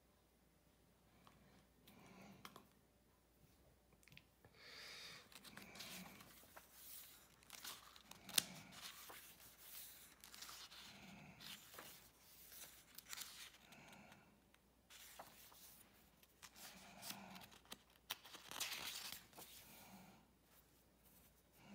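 Faint paper rustling as the pages of a hardcover book are turned and handled, with one sharp click about eight seconds in.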